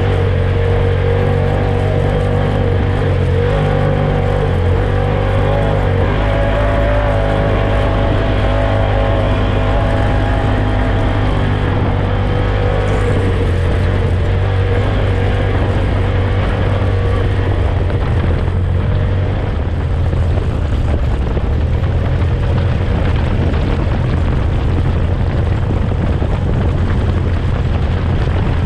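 UTV engine and drivetrain running steadily while the vehicle drives, a continuous loud drone whose pitch wavers slightly in the first half.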